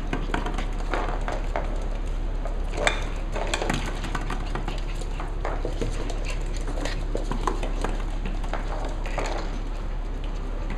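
Cavalier King Charles Spaniel puppies playing on a wooden floor: a busy scatter of claw clicks and light knocks against plastic toys, with the odd small puppy noise.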